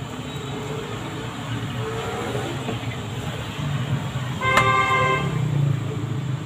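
A vehicle horn toots once, a short pitched blast of under a second about two-thirds of the way through, over a steady low background rumble.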